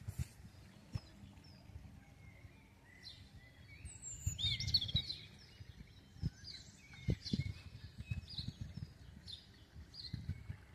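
Small songbirds singing and chirping, the calls coming thicker about four seconds in, over a low, uneven rumble with a couple of dull thumps in the middle.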